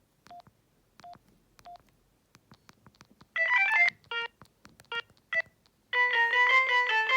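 Alcatel OT-E158 mobile phone: three short keypad beeps and faint button clicks, then a half-second run of ringtone melody that stops abruptly. Three more key beeps follow, and about six seconds in a ringtone melody starts playing from the phone's speaker.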